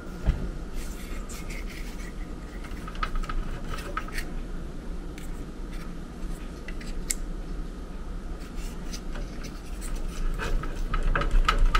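Hands handling wiring and a small circuit board inside an air handler: scattered light clicks, scratches and rubbing of wires and plastic, busier near the end. A low steady hum sits underneath.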